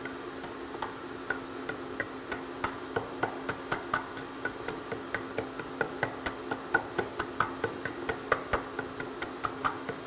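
A metal utensil mashing ripe bananas in a stainless steel bowl, clinking against the bowl in a quick, regular rhythm of about three to four clicks a second. A steady low hum runs under it.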